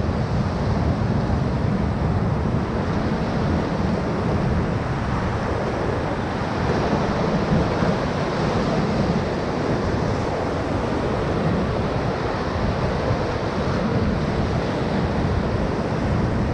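Rushing whitewater of a river rapid heard from a raft, a steady roar, with wind buffeting the microphone.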